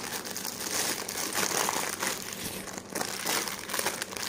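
Plastic packaging crinkling and rustling as it is handled, in uneven scrunches.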